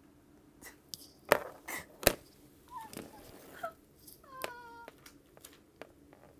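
Paper signs held with masking tape being peeled off a wall: scattered rustles and a few sharp clicks, the loudest a little over a second in and about two seconds in. A short hummed voice sound comes about four and a half seconds in.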